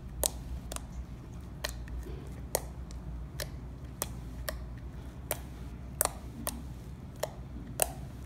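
Slime being squeezed and poked by hand, giving sharp little clicking pops from trapped air, irregularly about one or two a second.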